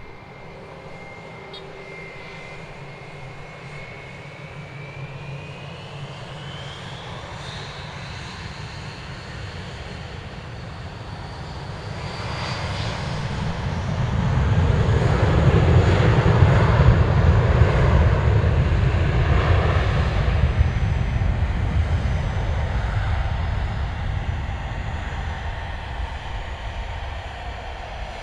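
Jet airliner's engines as the plane passes. A thin whine rises steadily in pitch over the first dozen seconds. Then the engine noise swells to its loudest about halfway through and slowly fades away.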